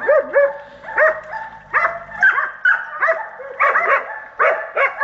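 Several hunting hounds baying at a wild boar: repeated, overlapping barks at about two a second.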